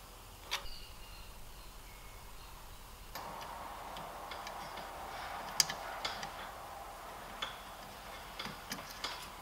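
Light handling sounds at an electric motor: a small metal click from a spanner on a grease nipple, then, after a change of background hiss, scattered clicks, taps and rustles as a rubber-sheathed power cable is worked against the motor's terminal box. The loudest is a single sharp tap a little past the middle.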